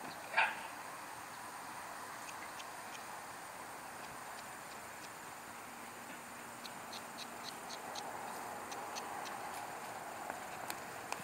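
A single short dog bark about half a second in, over a steady outdoor hiss. Later comes a run of about ten quick, high ticks, roughly four a second.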